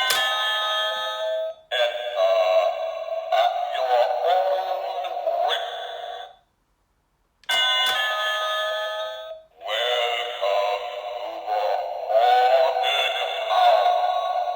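Animated Halloween doorbell prop set off twice. Each time it plays a short electronic ding-dong chime followed by a recorded spooky saying, all through a small speaker that gives a thin sound with no bass.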